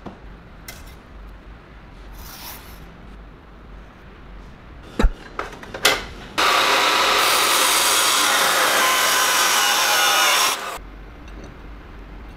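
A couple of sharp knocks, then about four seconds of loud, steady grinding noise from a power tool working on metal. The noise starts and stops abruptly.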